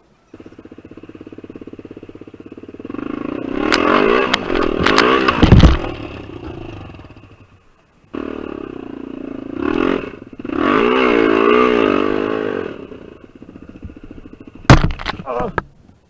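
Honda XR250R dirt bike's single-cylinder four-stroke engine revving hard in uneven bursts while the bike is stuck in brush and mud, with clattering knocks. The engine cuts out about eight seconds in, catches again at once, revs, and stops near the end after a loud knock.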